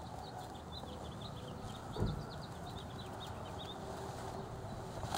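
A small bird twittering in a quick run of short high chirps over faint outdoor background noise, with one dull thump about two seconds in.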